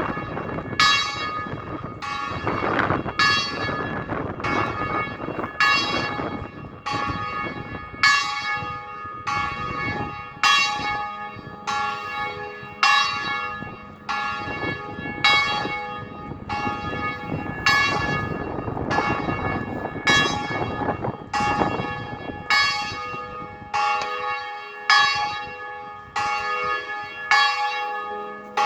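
Bells ringing in a continuous peal: a new stroke under a second apart, several bells of different pitch, with the loudest stroke coming about every two and a half seconds. Wind rumbles on the microphone underneath, easing off near the end.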